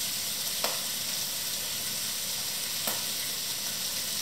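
Chickpeas, bell pepper and onions frying in a pan, a steady sizzle. Two light clicks of a teaspoon come about half a second and three seconds in, as spice is spooned in.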